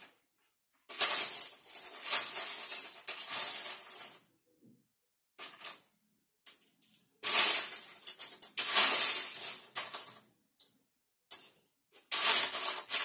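Loose Lego bricks clattering and clinking as a hand rummages through a pile of them, searching for a piece. It comes in three bouts, starting about a second in, around seven seconds in and near the end, with a few single clicks between.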